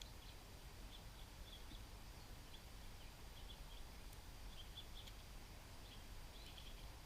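Small songbirds giving faint, short, high chip notes, scattered irregularly, over a steady low background rumble.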